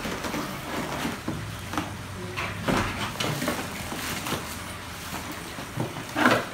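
Packaging being handled: cardboard and molded pulp packing trays scraping and knocking, and plastic bags crinkling. A louder rustle comes near the end.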